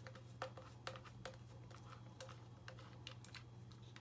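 Faint, irregular small clicks of a screwdriver backing a screw out of the plastic housing of a Samsung washing-machine drain pump, over a low steady hum.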